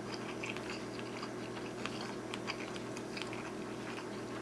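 A person chewing a mouthful of sushi roll close to the microphone, with small wet clicks and crackles, over a steady low hum.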